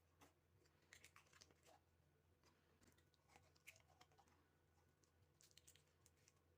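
Near silence, with faint scattered small clicks and taps at an uneven pace.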